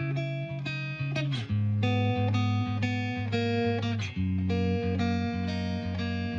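Background music led by a plucked guitar over a bass line, with chords changing about every second.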